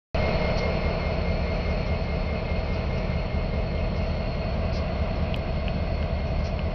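Ferromex diesel-electric locomotive's engine running with a steady low rumble.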